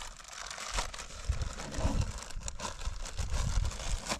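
Wind buffeting the microphone in uneven low gusts, with a light crinkle of packaging being handled.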